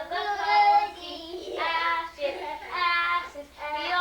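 A young child singing in a high voice, holding long drawn-out notes.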